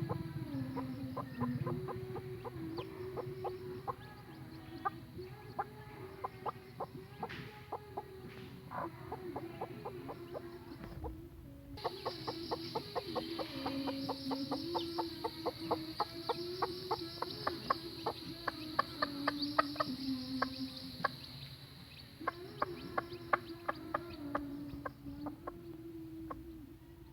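A mother hen clucking over and over to her young chicks, in quick short clucks. From the middle of the stretch, high chick peeping runs alongside for about nine seconds.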